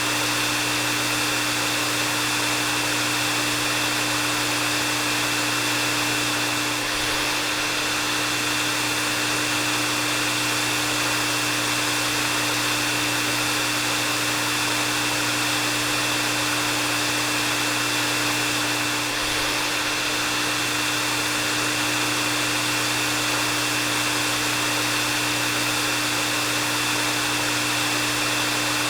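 Hair dryer running steadily on one setting: a constant rush of blown air with a steady low motor hum and a thin high whine, dipping very slightly twice.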